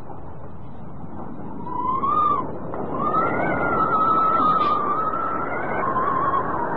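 Steady heavy rain, with a long, high, wavering wail over it that rises about two seconds in, holds, and dips lower near the end.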